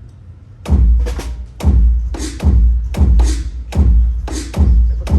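Drum kit played for a soundcheck through the venue PA: heavy low drum hits, each with a cymbal splash, about two strikes a second.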